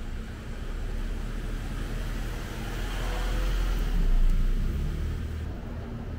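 Street traffic, with a motor vehicle passing close by: the noise swells to its loudest a little past the middle and then fades.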